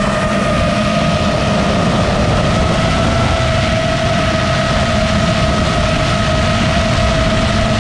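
FPV racing drone's brushless motors whining at a steady pitch, with rushing air noise underneath.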